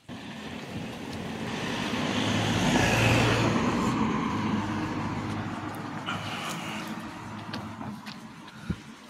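A car drives past on the road. Its engine and tyre noise swells to a peak about three seconds in, then fades away.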